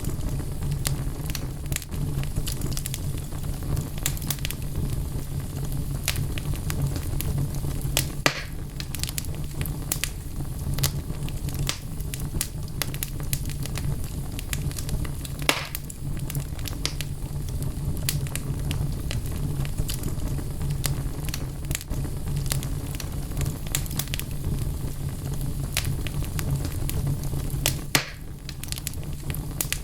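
Wood fire burning in a fireplace: a steady low rumble of flames with frequent sharp crackles of burning logs and a few louder pops.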